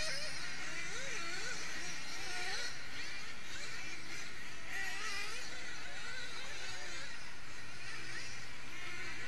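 Several 1/8-scale nitro buggy engines buzzing around the track, their high pitch rising and falling as the cars throttle through corners and down straights.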